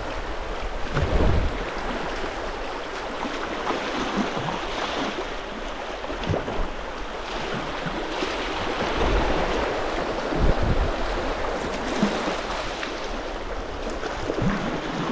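Rushing water of a shallow river rapid running around a kayak's hull, steady throughout, with a few low thumps about a second in and twice more later on.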